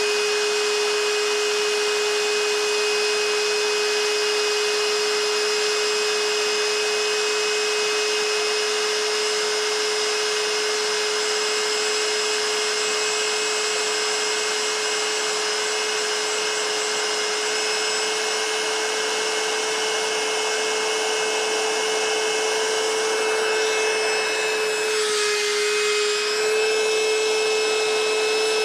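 A small motor running steadily, a constant whine over a steady rush of air-like hiss, with a brief wobble in pitch about 25 seconds in.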